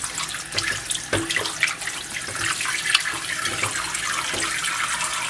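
Kitchen tap running into a bowl in a stainless steel sink while hands swish and rub raw chicken thighs in the water and vinegar, making steady running water with irregular splashes and squelches.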